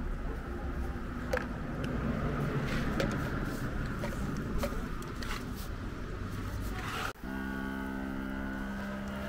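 Car-washing sounds: a steady hiss with scattered clicks and taps. About seven seconds in it cuts off abruptly and a steady machine hum takes over.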